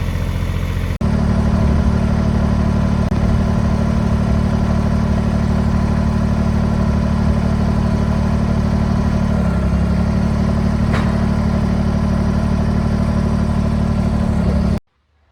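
Engine running steadily at a constant speed, with a single sharp tick about 11 seconds in; the sound cuts off suddenly near the end.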